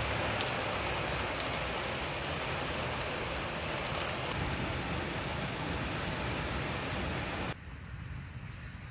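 Heavy rain pouring and splattering on a wall top close by, with sharp ticks of single drops in the first few seconds. About seven and a half seconds in, the sound drops suddenly to a fainter hiss.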